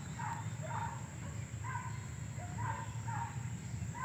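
An animal calling in short repeated notes, about two a second, over a steady low hum.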